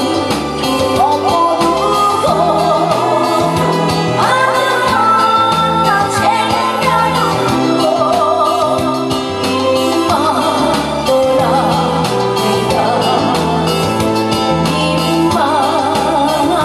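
A woman singing into a microphone with a wavering vibrato on her held notes, over a musical accompaniment with a steady, regularly changing bass line.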